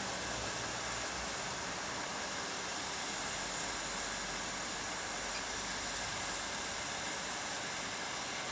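Steady hiss of steam from the standing 241P 17 steam locomotive, still in steam.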